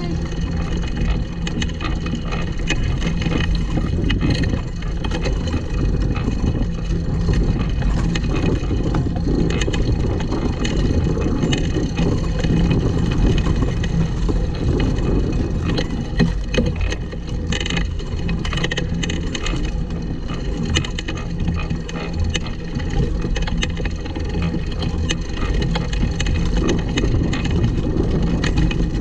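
Pedal go-kart rolling over grass and dirt: a steady rumble and rattle from its wheels and frame as it is pedalled.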